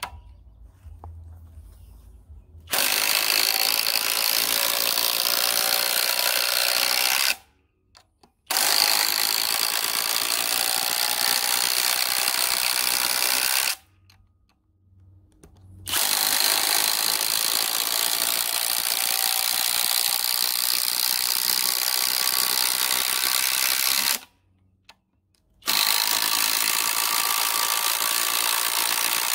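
Kobalt X.T.R. 24V brushless impact driver running on high, driving long fasteners one after another in a timed test. There are four runs, about 5 to 8 seconds each, separated by short pauses, and the last one is still going at the end.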